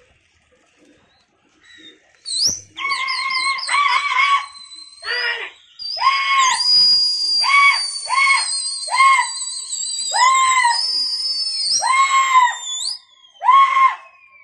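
Loud shouted calls, short and pitched, repeated about once a second, with long high wavering whistles held over them; typical of pigeon flyers whistling and shouting at a circling flock. After about two quiet seconds at the start, the calls carry on to the end.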